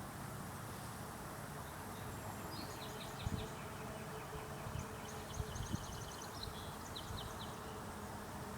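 Swampside nature ambience: a steady low outdoor rumble with rapid high chirping trills from small wildlife, and a few low thumps on the microphone about three and five and a half seconds in.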